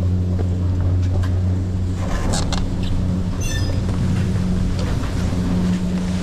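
Steady low hum of chairlift machinery at the top unloading station, with skis scraping over packed snow as riders slide off the chair. A few short clicks come in the first half, and a brief high squeak about three and a half seconds in.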